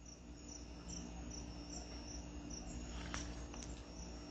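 Cricket chirping faintly and regularly, about two short high chirps a second, over a faint low hum, with a couple of faint clicks.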